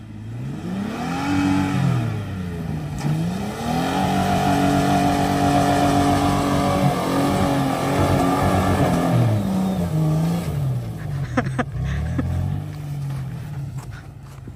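Toyota Tacoma pickup's engine revving hard as it drives up through deep snow. The revs climb, dip briefly, hold high for several seconds, then fall and waver before settling back toward idle near the end.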